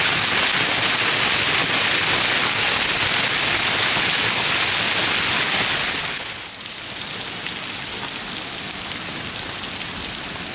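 Hailstones up to half-dollar size pelting the ground, a dense, even rush of impacts. It drops somewhat in loudness about six seconds in and keeps on.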